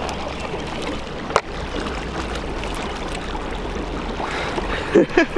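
Small fishing boat under way on a lake: a steady low rumble with water and wind noise. There is a sharp click about a second and a half in, and a short, louder sound near the end.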